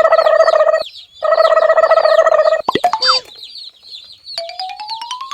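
Baby chicks peeping rapidly throughout, under added cartoon-style sound effects: a loud held buzzy tone in two stretches, a quick sliding whistle about three seconds in, then a rising ratcheting whistle near the end.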